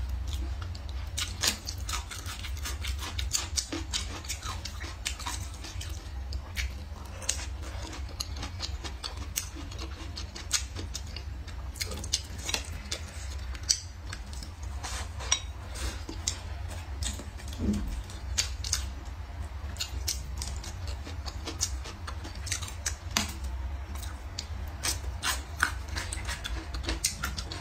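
Close-miked eating sounds: chewing and crunching of stir-fried green peppers and braised pork, with chopsticks clicking against a ceramic bowl, many short sharp clicks and crackles at irregular intervals over a steady low hum.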